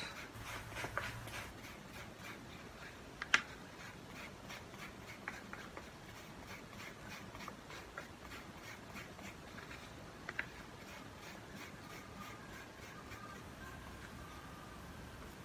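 Faint, repeated rubbing and scratching as graphite powder is worked into a small strip of sticky friction material, with one sharp click a little over three seconds in.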